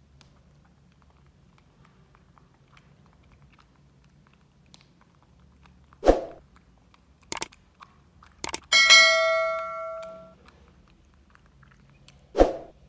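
A subscribe-button sound effect: a soft thump, two sharp clicks, then a bell-like ding that rings out for about a second and a half, and another thump near the end.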